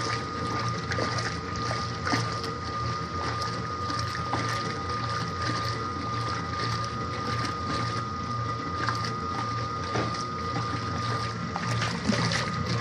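Mueller Plus washing machine running a wash with rugs in the water: a steady motor hum and a thin steady whine over sloshing water, with small knocks here and there.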